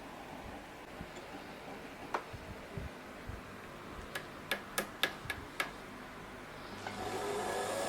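Singer 221K Featherweight sewing machine: a single click, then a quick run of about six sharp clicks as it is handled. About seven seconds in, its motor starts with a rising whine and keeps running.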